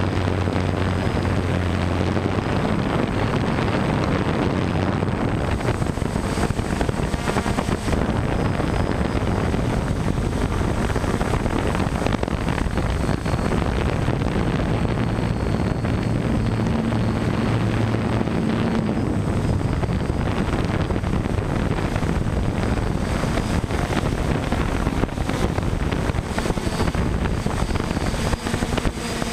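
DJI F550 hexacopter's electric motors and propellers running steadily, recorded close up on the aircraft itself, with wind rushing over the microphone. Its low hum shifts in pitch now and then.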